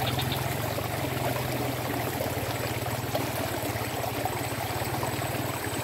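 Steady rush of running water in a small ditch, with a low steady hum underneath.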